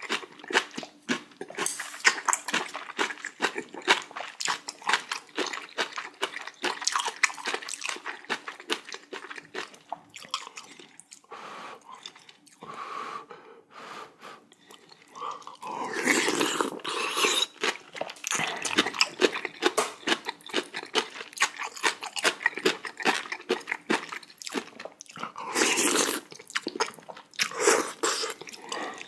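Close-miked eating of spicy jjamppong: continuous wet chewing and mouth smacks. Louder slurping bursts come about halfway through and twice near the end.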